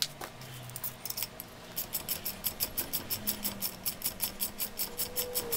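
Ratchet wrench clicking in a quick, even rhythm of about seven clicks a second, starting a couple of seconds in, as it turns the bolt of a valve spring compressor on a cylinder head: the compressor being backed off to release a valve spring once its keepers are out. A few light metal clinks come before the ratcheting.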